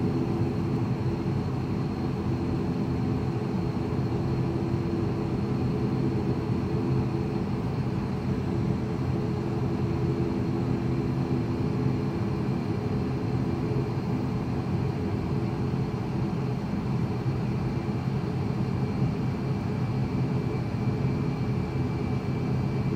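Twin turboprop engines and propellers of an ATR 72-500 droning steadily, heard from inside the passenger cabin. The pitch holds even, with several steady tones over a hum, as at low power while taxiing before takeoff.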